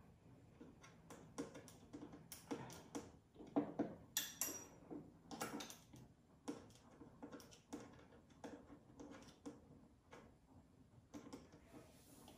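Irregular light clicks and knocks of curtain-hanging hardware being handled and fitted, with a louder cluster of knocks and a short rattle about four seconds in.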